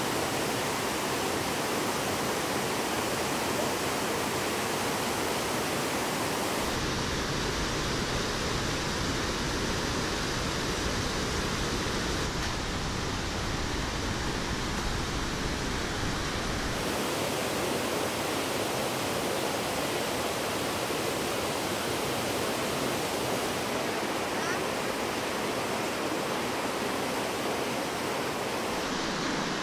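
Steady rush of water from Iguazu Falls and the rapids above it, a dense unbroken roar of falling and racing water. About a third of the way in it turns heavier and deeper for roughly ten seconds, then goes back to a lighter rush.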